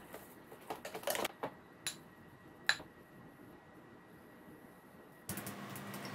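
A few faint, scattered clicks and taps, then a low steady hum from about five seconds in.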